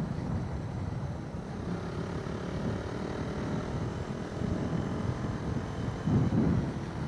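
A Suzuki motorcycle's engine runs steadily as the bike rides along at around 45–50 km/h, gently picking up speed, with wind rumbling on the microphone. The rumble swells louder about six seconds in.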